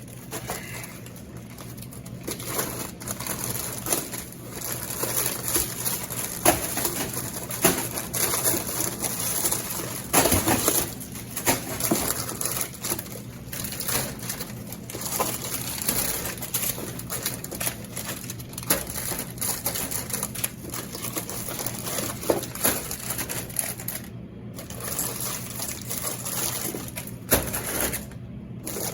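Snack bags crinkling and rustling, with irregular light clicks and knocks of handling as a vending machine is restocked, over a steady low hum.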